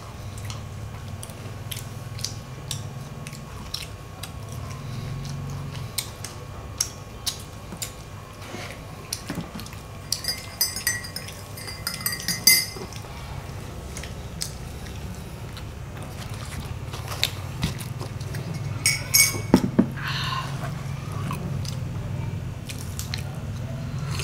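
A teaspoon stirring and clinking against a ceramic mug of tea in two short spells, over scattered small clicks and taps from eating and a steady low hum.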